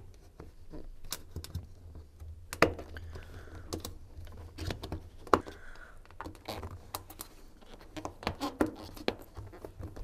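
Hands working a washing machine's rubber door seal back over the lip of the door opening: scattered light clicks and taps, with some soft rubbing of rubber.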